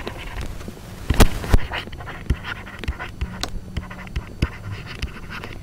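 Stylus tapping and scratching on a pen tablet during handwriting: an irregular scatter of short clicks, a few sharper ones about a second in, over a steady low hum.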